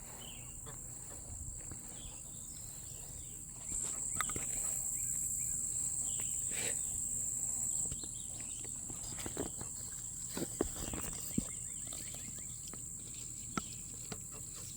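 Steady high-pitched insect chorus, typical of crickets, louder for a few seconds in the middle, with scattered light clicks and rustles.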